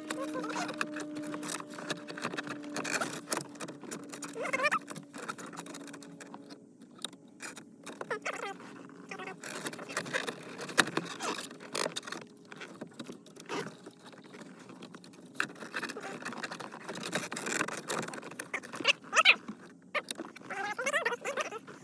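Irregular small clicks, taps and scrapes of plastic interior trim and parts being handled and snapped back into a car's console.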